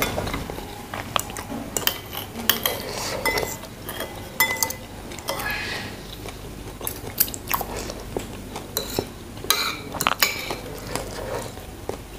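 Stainless spoon and fork scraping and clinking against a ceramic plate of rice in many short, irregular clicks, some with a brief ring. Chewing sounds come in between the clicks.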